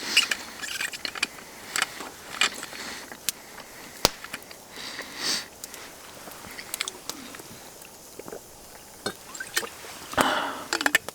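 Close-up sounds of a person eating: chewing and sniffing, with scattered small clicks and rustles. A louder burst comes about ten seconds in.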